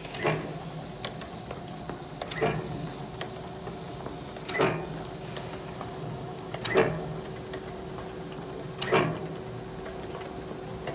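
Glue back binding machine for writing pads running: a steady mechanical hum with a thin high whine, and a sharp clack repeating about every two seconds.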